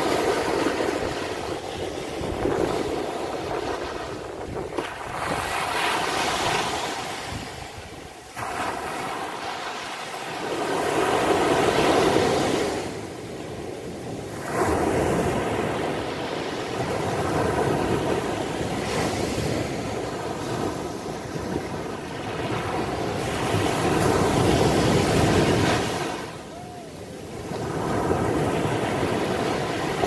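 Small waves breaking on a sandy beach and washing up the shore. The surf rises and falls again and again as each wave comes in and drains back.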